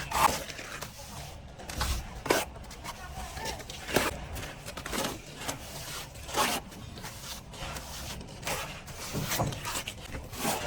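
Plastering trowel scraping and rubbing across a wall in irregular strokes, a few a second.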